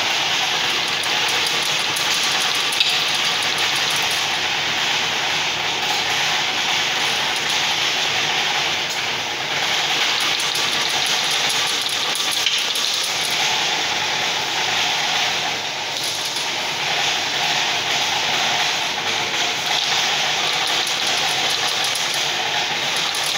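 Chain-link fence weaving machine running continuously, twisting PVC-coated wire into mesh spirals: a steady, even mechanical hiss without pauses.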